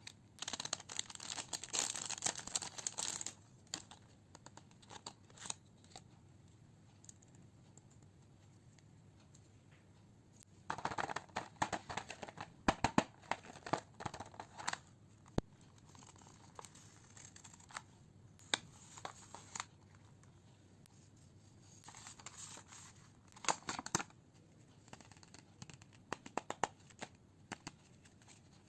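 Packaging being torn open and crinkled while a stationery kit is unwrapped. The rustling comes in several spells, with small clicks and taps in between.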